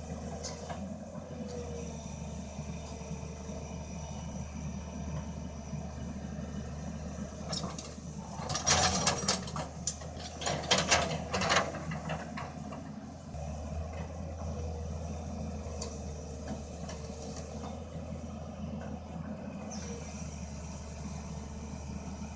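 Excavator diesel engine running steadily under work. About eight seconds in, a run of loud, sharp clattering and scraping lasts some four seconds.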